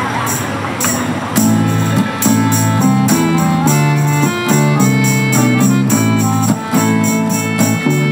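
A band's instrumental introduction. A jingling hand percussion keeps a quick, steady beat, and about a second and a half in, accordion chords and acoustic guitar come in over it.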